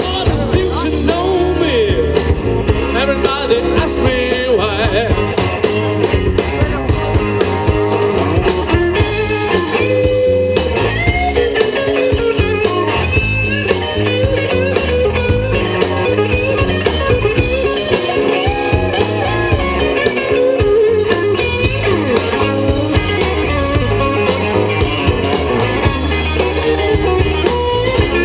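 Rock band playing live: a bluesy rock-and-roll number with wavering guitar lines over bass and a steady drum beat.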